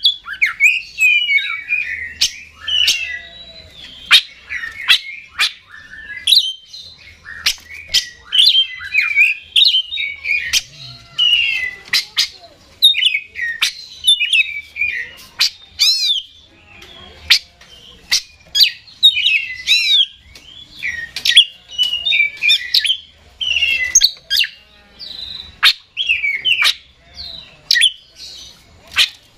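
An oriental magpie-robin singing hard and without let-up: fast, varied whistled and warbled phrases broken by many sharp clicks.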